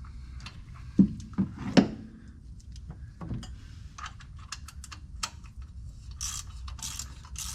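A few sharp knocks of metal tools, then a socket ratchet clicking in quick strokes from about six seconds in, as a spark plug is run back into the cylinder head of a Ford 460 V8.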